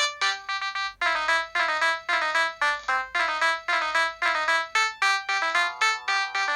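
Preloaded ringtone of a Samsung SCH-N356 mobile phone playing: a fast electronic melody of short notes, several a second.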